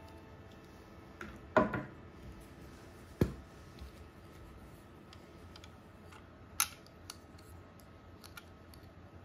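Small plastic and metal parts of a disassembled die-cast pull-back toy truck being handled and set down: a few light clicks and knocks, the loudest with a short rattle about one and a half seconds in, a sharp click a little after three seconds, another click about six and a half seconds in, and faint handling ticks between.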